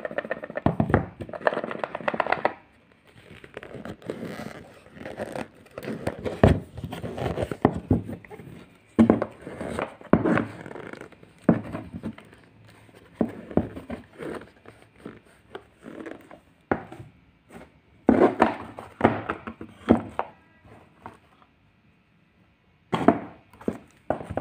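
A small cardboard smartwatch box being opened and unpacked by hand: irregular knocks and thunks as the box and lid are handled and set down, with rustling of the paper wrapping around the watch.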